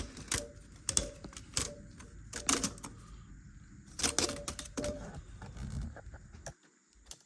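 Irregular metallic clicks and clanks of a hose clamp and head gasket being handled and worked into place on an engine block. The clatter dies away about six and a half seconds in.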